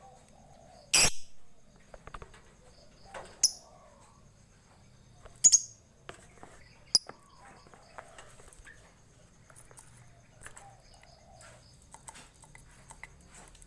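Lovebird giving four short, shrill, high-pitched calls at uneven intervals, the first and third the loudest. A faint high chirping runs underneath.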